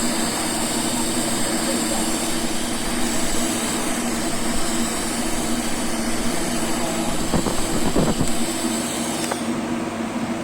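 TIG welding arc at about 120 amps, hissing and buzzing steadily over the welding machine's hum. The hiss cuts off about nine seconds in as the arc stops, leaving the machine's steady hum.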